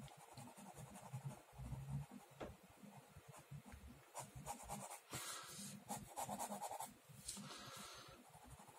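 Pen scratching on paper in quick, faint drawing strokes, with the densest run of back-and-forth strokes about five seconds in and another shorter run a little later.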